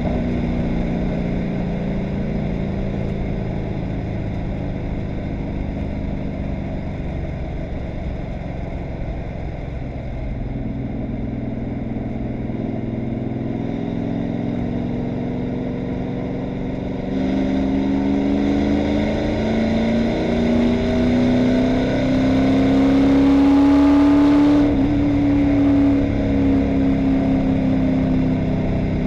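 Stock car's V8 engine heard from inside the cockpit while lapping the track. The engine note eases through the first third, then climbs steadily in pitch and loudness from a little past halfway as the car accelerates, and drops off suddenly near the end as the throttle comes off.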